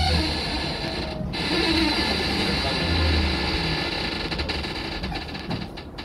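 Cologne KVB line 1 tram running along its track, heard from the front of the cab: a steady low drive hum with wheel-on-rail noise, and a quick run of clicks and rattles near the end.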